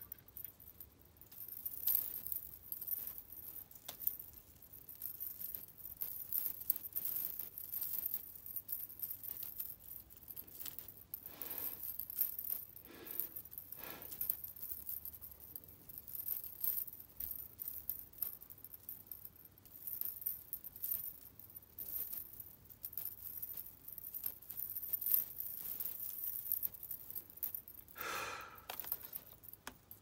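Small metal and plastic hair clips handled and unwrapped: a steady run of light clinks and jingles, with thin plastic packets crinkling. There are a few louder crinkles around the middle and near the end.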